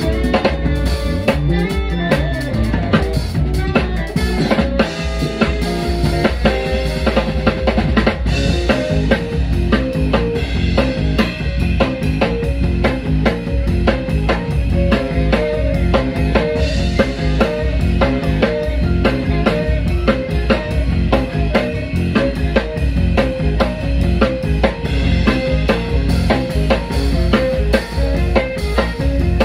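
Live band playing: drum kit prominent, with bass and pitched instruments, a saxophone among them near the end. Loud and continuous, with a steady beat.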